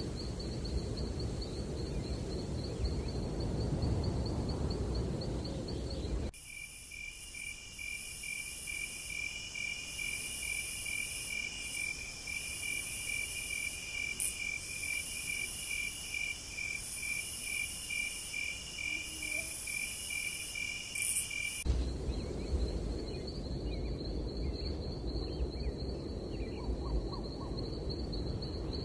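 Crickets singing in the night forest: for about fifteen seconds in the middle, a steady fast-pulsing trill with a higher, on-and-off chirping insect above it. Before and after, a thin steady high insect buzz over low rumbling noise.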